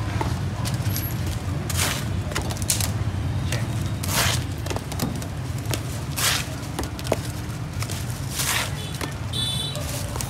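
Cleaver slicing open crusty Vietnamese baguettes on a wooden chopping block: a short crunch of the crust about every one to two seconds, over a steady low hum.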